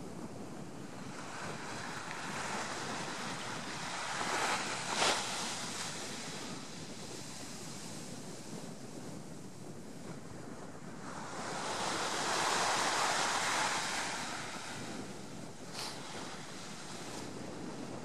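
Small sea waves breaking and washing up a sandy beach, a steady hiss of surf that swells twice: briefly about four seconds in, then longer and louder from about eleven to fourteen seconds.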